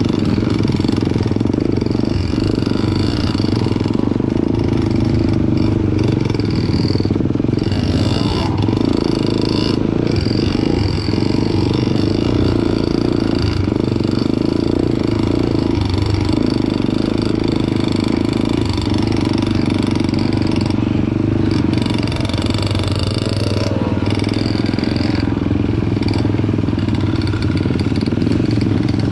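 Motorcycle engine running steadily while riding a dirt trail, with occasional clattering knocks over rough ground.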